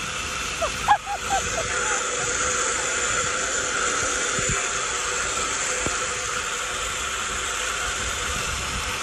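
Steady rushing, whirring noise of a bicycle zip-line ride: the trolley running along the steel cable, with wind. A few short high-pitched sounds come about a second in.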